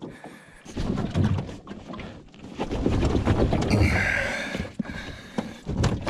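Padded boat seat being yanked and twisted on its pedestal mount: irregular thuds, rattles and rubbing, with a brief creak about four seconds in. The seat is stuck and will not lift off its post.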